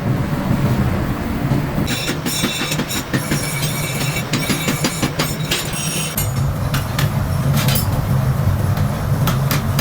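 Irregular metal-on-metal strikes and clanks with a high ring, starting about two seconds in over a steady low machine hum, typical of forging work on steel in a blacksmith's shop.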